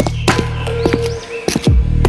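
Background electronic music with a steady bass and beat; the bass drops out about a second in and comes back with a falling sweep.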